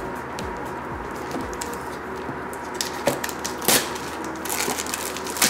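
Handling noise from a shrink-wrapped smartphone box being turned over by hand: light crinkles of the plastic wrap with small clicks and taps, growing into a denser rustle near the end.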